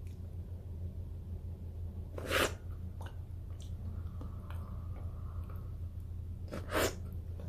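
Mouth sounds of eating a frozen yogurt bar on a stick: two short, loud slurps about four seconds apart as the frozen yogurt is sucked at, with faint wet mouth clicks between them, over a steady low hum.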